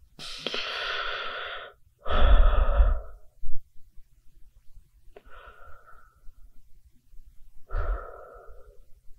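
Human breathing: four separate breaths over about nine seconds, the second, about two seconds in, the loudest with a low rumble.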